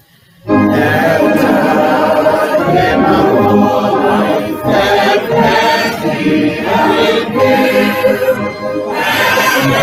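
A choir sings a hymn with no instruments audible. The singing starts about half a second in, after a brief break.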